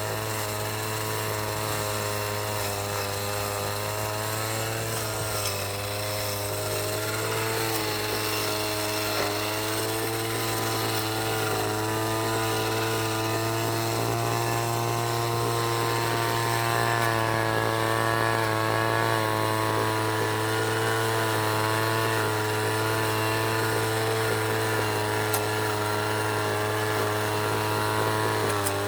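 City traffic ambience: an engine running with a steady low hum and a stack of tones that drift slowly up and down in pitch, over a constant hiss of traffic.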